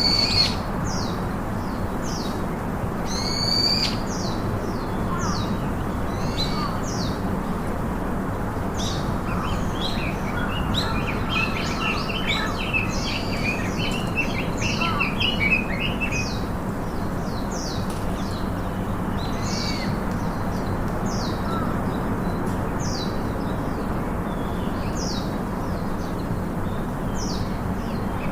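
Birds chirping and calling in many short, quick notes, busiest in the middle, over a steady low hum.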